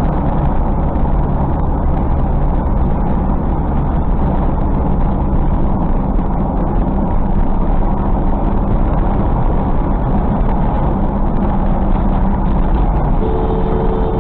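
Steady road and engine noise inside a car cruising at highway speed.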